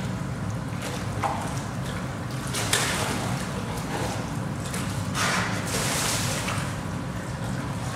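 Water splashing and sloshing as a polar bear mother and her cub swim and paddle together in a pool, with a stronger splash about three seconds in and a longer one past the middle, over a steady low hum.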